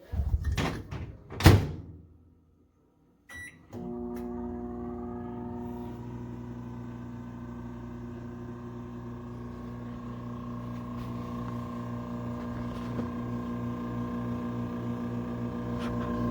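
Toshiba ML-EC42P countertop microwave oven: a few thunks as the door is shut, then a short beep as it is started. The oven then runs with a steady, many-toned hum.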